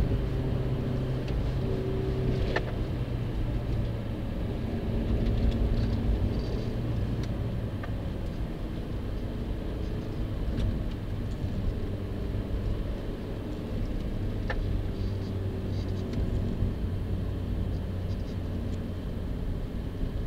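Interior of a Suzuki SX4 4x4 on the move: steady engine and road rumble as the car slows from about 85 to 55 km/h, the engine note dropping a few seconds in. Two brief sharp clicks are heard, one early and one past the middle.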